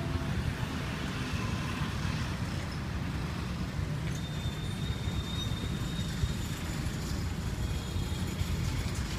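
Steady low rumble of outdoor street background noise, with a faint thin high tone lasting about two seconds near the middle.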